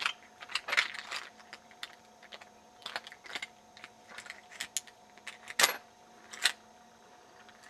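Irregular small clicks and taps of metal deadbolt parts being handled and fitted together, a couple of louder clacks late on.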